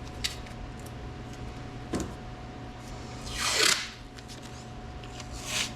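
Masking tape pulled off the roll in two short rasping rips, the louder about three and a half seconds in and a shorter one near the end, with a couple of small clicks before them, over a steady low hum.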